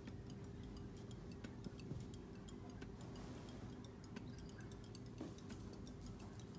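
Faint quick ticking clicks, several a second, over a low steady hum.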